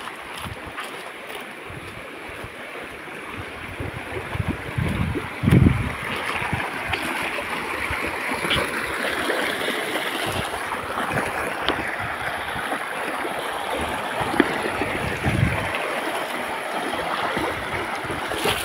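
Shallow stream rushing and splashing over rocks, growing louder about five seconds in and then staying steady. A few low thumps around five seconds in.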